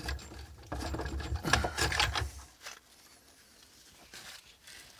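Moulded plastic circuit-breaker housing parts rubbing and scraping against each other as the back panel is worked free of the base, with small irregular knocks. It stops about two and a half seconds in.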